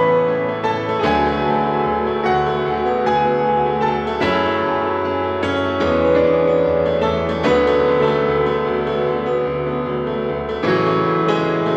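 Background solo piano music, a slow piece with chords struck every couple of seconds and left ringing.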